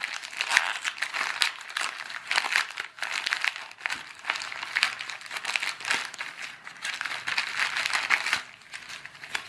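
A plastic postal mailer bag crinkling and crackling as it is torn open by hand and a foam-wrapped package is pulled out of it. Lots of sharp little crackles, dying down about eight seconds in.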